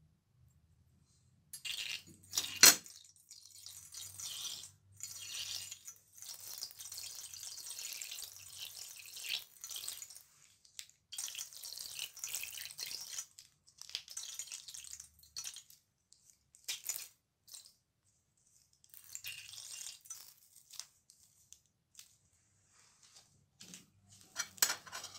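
One sharp snip as scissors cut the tip off a plastic piping bag, then thick wet slime squeezed out of the bag onto a tray of runny slime. It comes in squelching, fizzy spurts of a few seconds each, with short pauses, and a few clicks near the end.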